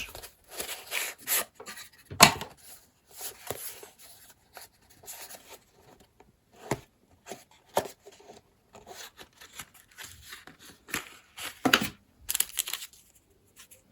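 Knife packaging being handled and opened: scraping and rustling with scattered sharp clicks and knocks, the loudest click about two seconds in and a longer rustle near the end.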